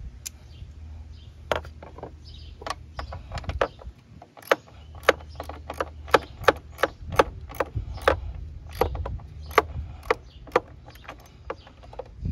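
Socket ratchet clicking in irregular runs while the battery hold-down bracket's bolt is tightened.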